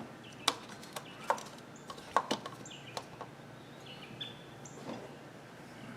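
Irregular light clicks and knocks, as of parts and tools being handled during engine work, about a dozen over a few seconds, with birds chirping faintly in the background.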